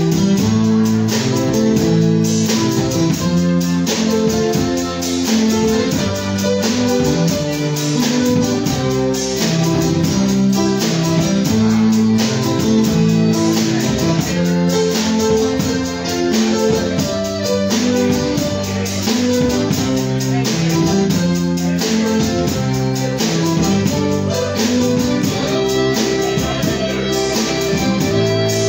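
Live Cajun band playing an instrumental passage: electric guitar and a button accordion over a drum kit keeping a steady dance beat.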